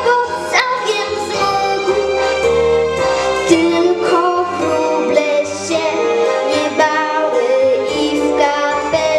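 A young girl singing a song into a microphone over recorded backing music with a steady bass line.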